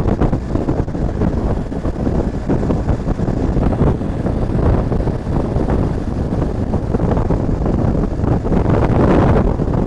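Wind buffeting an action camera's microphone on a BMW R1250 GSA motorcycle cruising at speed, with the motorcycle's running mixed into the steady rushing noise.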